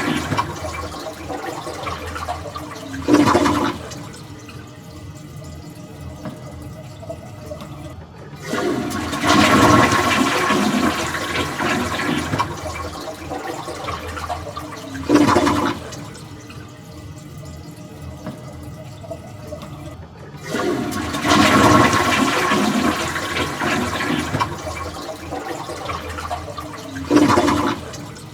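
Toilet flushing over and over: a loud rush of water that starts suddenly about 8 seconds in and again about 20 seconds in, each easing down into a quieter steady running of water, with a brief louder surge of water a few seconds before each new flush.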